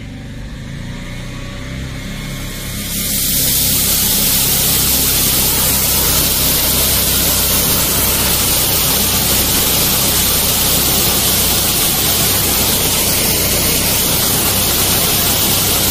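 Engine-driven high-pressure drain jetter running on a single engine with a steady low drone; about three seconds in, its jetting nozzle opens up into a loud, steady hiss of high-pressure water spray.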